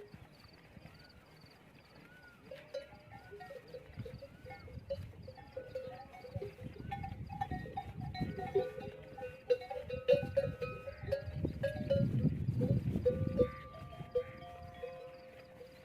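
Many camel bells clanking and ringing as a flock of camels moves along. The overlapping ringing grows thicker from about six seconds in, over a low shuffling noise that swells and then stops about two seconds before the end.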